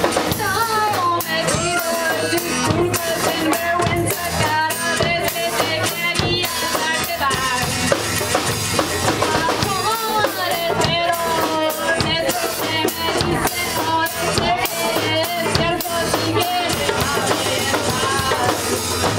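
A band playing live: a drum kit keeping a steady beat under a wavering melody line.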